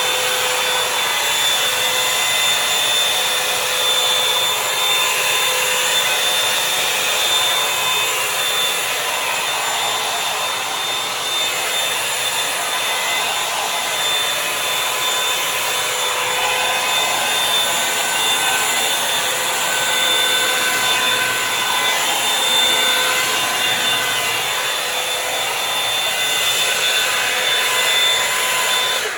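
Revlon One Step Volumizer hot-air brush running steadily: the rush of blown air with a thin motor whine over it. It is switched off at the very end, where the sound cuts off suddenly.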